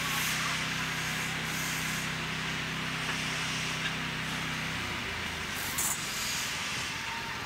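Factory assembly-line machinery: a steady low machine hum over a constant hiss, the hum stopping about five seconds in, with a short burst of compressed air soon after.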